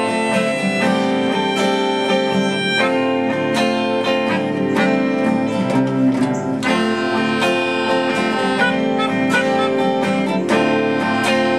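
Instrumental intro of a live indie-folk song: a strummed guitar with sustained melodica notes held over it at a steady tempo.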